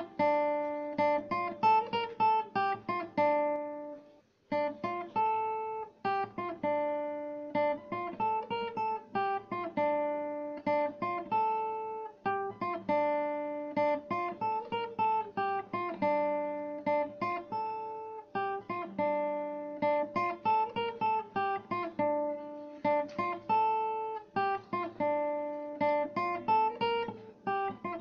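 Background music on acoustic guitar: plucked notes ring and die away in a repeating pattern, with a brief pause about four seconds in.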